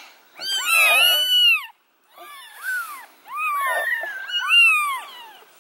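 Newborn kittens mewing: several high, rising-and-falling cries overlapping in groups of about a second, with a short pause about two seconds in.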